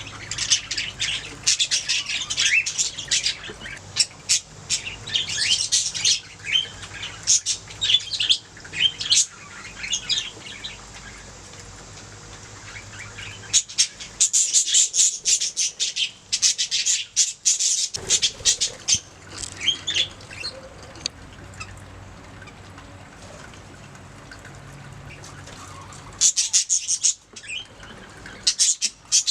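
Budgerigars chattering and warbling, a fast run of high chirps and squawks that comes in bouts, with quieter gaps between them.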